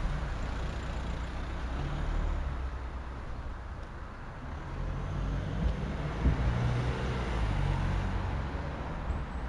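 Low rumble of a motor vehicle's engine running, with a couple of sharp knocks a little past the middle.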